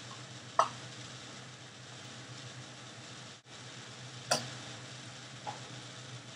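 Rice frying in olive oil in a pan, sizzling steadily as it is stirred, with two sharp clinks of the spoon against the pan, about half a second in and about four seconds in, and a fainter one shortly after. A steady low hum runs underneath.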